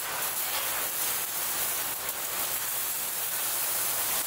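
Steady hiss of factory machinery on a robotic car-body welding line, with a few faint clicks.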